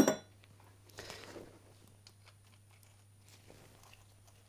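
A sharp metal clink with a brief ring, then faint small clicks and scrapes as a nut is fitted by hand onto a motorcycle suspension mounting bolt.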